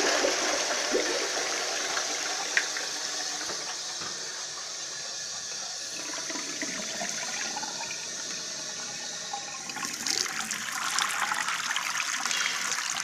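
Toilet flushing: loud rushing water that settles into a steady hiss after a few seconds. About ten seconds in, a tap starts running into a sink with splashing.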